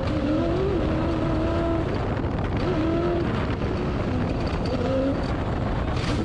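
Off-road vehicle engine running under way, its pitch rising and falling with the throttle, over a heavy rumble of wind and driving noise.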